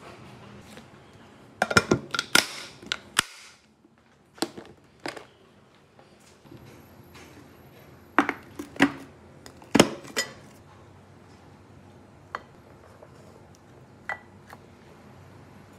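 Glass meal-prep containers with snap-lock plastic lids being handled on a stone countertop: several bursts of sharp clicks and clacks, with a few lighter single clicks near the end as rice is spooned in.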